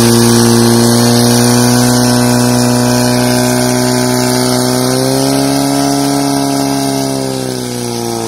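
Portable fire pump engine running flat out, a loud steady engine note pumping water through the attack hoses to the nozzles. Its pitch rises a little about five seconds in and sags again near the end.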